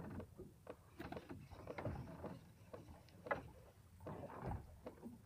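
Water slapping against the hull of a small fishing boat, with irregular faint knocks and clicks.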